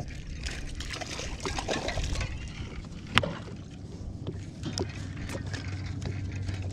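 A hooked crappie being reeled up to the boat and lifted from the water: light splashing and handling noise, with one sharp click about three seconds in and a low steady hum over the last couple of seconds.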